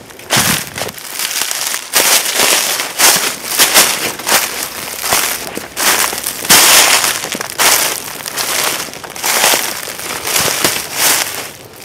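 Footsteps crunching through dry fallen leaves, one crunch with each stride at a steady walking pace.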